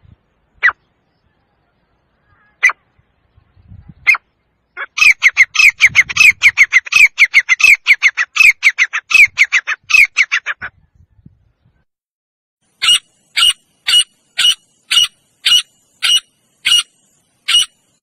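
Male grey francolin calling: a few single sharp notes, then a fast run of notes for about six seconds, then after a short pause a steady series of about two loud notes a second.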